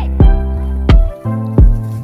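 Background music with a steady beat: a deep kick drum about every 0.7 s under sustained bass and chords.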